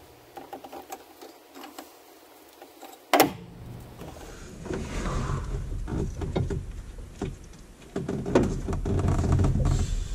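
A wrench and gloved hand working at an Argo ATV's transmission drain plug: scattered metal clinks and scraping, with one sharp clank about three seconds in.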